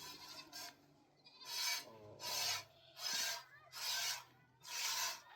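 Rhythmic rasping strokes, about five of them a little under a second apart, like something being scraped or sawn back and forth.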